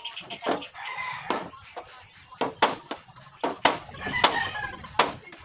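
Hammer striking a galvanized iron sheet, about eight sharp metallic strikes at an uneven pace, some in quick pairs. A rooster crows in the background near the start and again about four seconds in.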